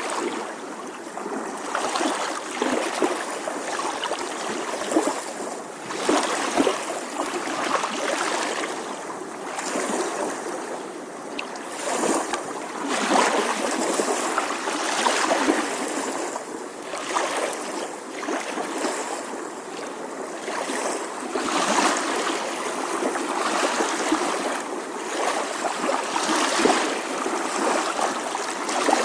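Small ocean waves lapping on the shore, a continuous wash of water that swells and eases every couple of seconds with light splashes.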